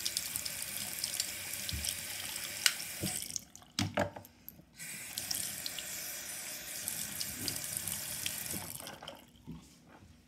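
Bathroom sink tap running, water splashing into the basin. The flow stops for about a second and a half a little over three seconds in, with a couple of knocks, comes back, and stops about nine seconds in.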